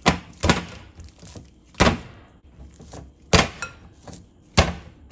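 Hand squeezing and pressing wet pizza dough in a bowl by hand, making irregular wet slaps and thumps, about six in five seconds, as the yeast water is worked into the rested dough.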